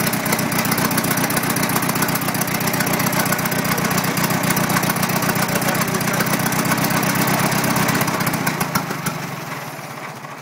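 1920 Cletrac Model F crawler tractor's engine idling with an even beat, then fading and slowing over the last two seconds as it dies. It is running only on the fuel left in the carburettor bowl.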